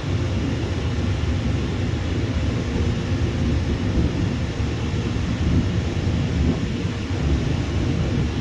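Airliner jet engines giving a steady, loud low rumble.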